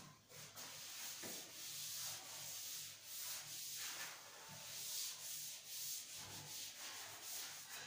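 Blackboard duster rubbed back and forth over a chalkboard, wiping off chalk writing in repeated scrubbing strokes.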